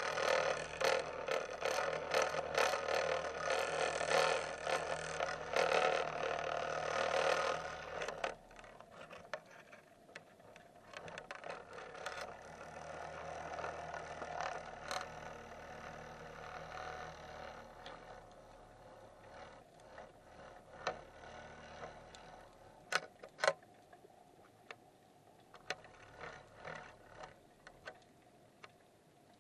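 Underwater camera on a sinking fishing rig, heard through its housing: dense rattling and clicking for about eight seconds while it is lowered, then quieter scattered clicks and knocks, with a few sharper knocks about two-thirds of the way through.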